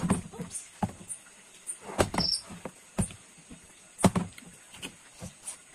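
Plastic bottle being flipped and landing on the floor, a string of short knocks and thuds at uneven spacing.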